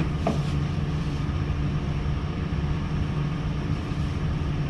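Steady low mechanical drone of running machinery, with a faint click about a third of a second in.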